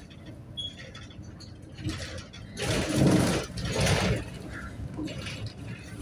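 Interior of a moving city bus: a steady low hum from the engine and road, with two loud noisy bursts about three and four seconds in.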